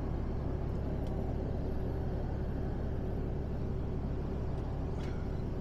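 Steady drone of a Mercedes-Benz Actros truck's engine and road noise, heard inside the cab while cruising at motorway speed.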